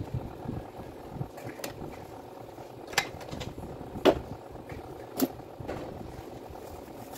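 A few sharp clicks and knocks of small tool parts and hand tools being handled on a workbench, the loudest about four seconds in, over steady background noise.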